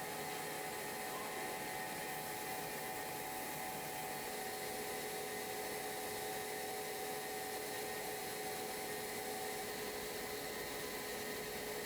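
Steady hiss with a faint constant hum of several held tones, unchanging throughout.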